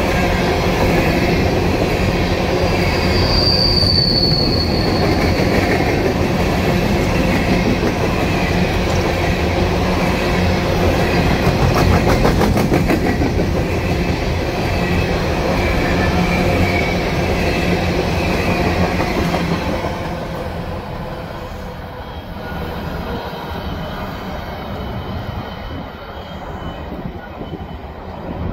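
Empty steel coal gondola cars of a freight train rolling past close by, a steady rumble and rattle of wheels on rail, with a brief high wheel squeal about four seconds in and a run of quick clicks around twelve seconds. After about twenty seconds it drops to a quieter, more distant rumble as the end of the train moves away.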